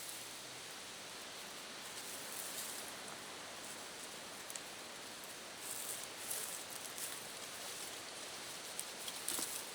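Steady outdoor hiss with a few brief rustles, clustered about six seconds in and again near the end.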